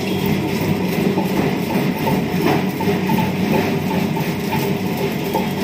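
Washing machine running its wash cycle: a steady motor hum with the clothes and soapy water churning in the tub.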